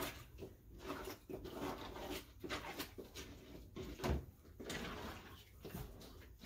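Irregular knocks, scrapes and rustles of feed containers and a scoop being handled while horse feed is mixed, with a louder thump about four seconds in.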